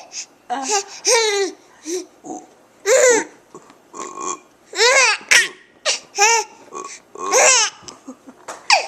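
Baby laughing in a string of short, high-pitched squealing bursts, roughly one or two a second.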